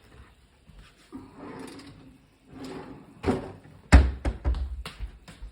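Kitchenware knocking and clattering while a pot lid is fetched and set on the cooking pot: one loud knock about four seconds in, then several quicker clacks.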